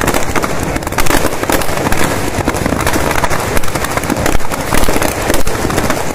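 Firecrackers packed inside a burning Ravan effigy going off in a dense, irregular stream of bangs and crackles.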